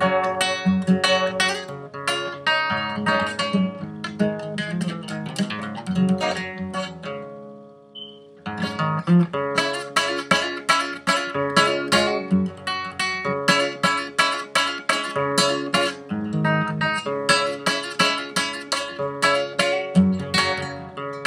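Classical guitar played solo, strummed and picked chords with a bass line in a steady rhythm. About seven seconds in the playing breaks off and rings out briefly, then picks up again.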